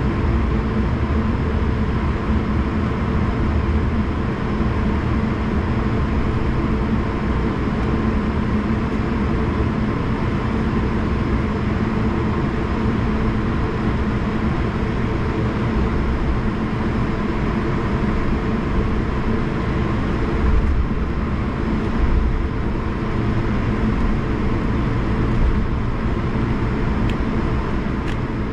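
Cabin noise inside an Airbus A220 taxiing: the steady hum of its Pratt & Whitney PW1500G geared turbofans at taxi power, over the rumble of the landing gear rolling on concrete. Two brief, heavier bumps come about two-thirds of the way through.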